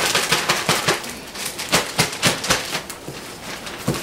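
Zip-top plastic bag of flour coating mix being shaken by hand: a run of quick, irregular rustles.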